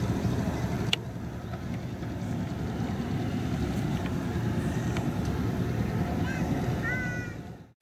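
Outdoor ambience: an uneven low rumbling noise, with a sharp click about a second in and a few short bird calls near the end.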